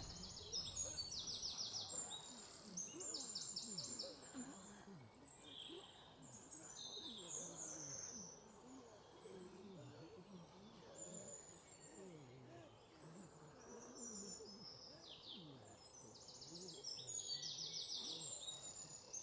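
Faint outdoor ambience of high chirping trills, short and repeated about once a second in clusters, over a low wavering murmur.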